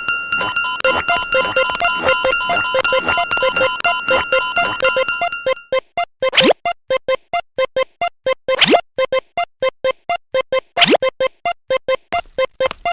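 Electronic meme music: a fast run of repeating synth beeps, about seven a second, with a steady high tone over them that cuts off about halfway through. Three rising swoops follow in the second half.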